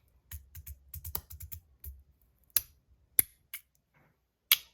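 Osseous Point EDC fidget slider being slid, making small clicks: a quick run of light clicks in the first two seconds, then four sharp single clicks.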